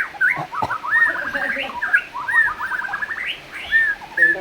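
White-rumped shama (murai batu, black-tailed form) singing in full voice: quick runs of clear, arching whistled notes repeated in rapid series.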